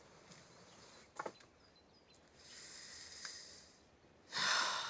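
A woman breathes in softly, then lets out a heavy sigh near the end, with a faint tap about a second in.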